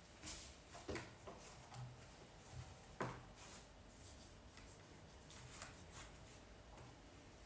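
Faint handling of a flower arrangement: soft rustling of stems and foliage, with a couple of short soft knocks, about one second and three seconds in, as stems are worked into it.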